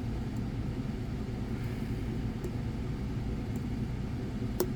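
Steady low background rumble with a few faint light clicks of a lock pick working in a dimple-core padlock, and one sharper click near the end.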